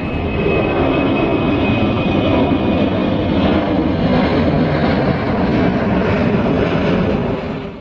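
Jet airliner engines running loud, with a steady rumble and a faint high whine, cutting off abruptly near the end.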